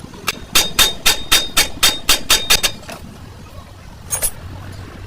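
Hammer striking steel: a quick run of about ten blows at roughly four a second, each with a short metallic ring, then a close pair of blows about four seconds in.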